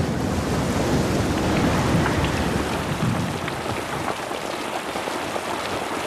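Heavy rain pouring down and splashing on the ground, a steady hiss with a low rumble of thunder beneath it.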